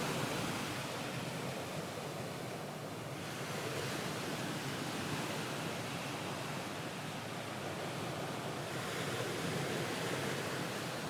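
Ocean waves washing on a shore: a steady rushing surf that swells and eases slowly over several seconds.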